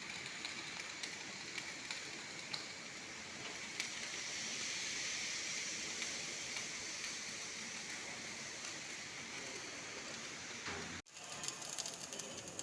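MIG welding arc crackling and hissing steadily, with scattered sharp pops. Near the end it cuts out for a moment and resumes with a busier, faster crackle.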